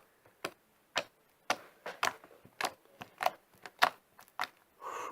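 Fluffy slime made from glue and shaving foam being squeezed and kneaded by hand, giving a run of sharp little clicks and pops at an uneven pace, about three a second.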